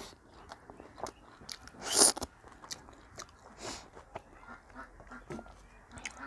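Close-miked mouth sounds of a person eating with their hands: chewing, lip smacks and small wet clicks, with one louder slurp about two seconds in.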